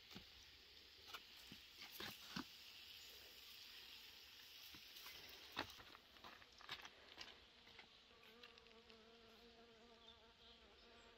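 Faint outdoor insect hum, with a flying insect buzzing from about halfway on as a low steady drone. A few light clicks come in the first half.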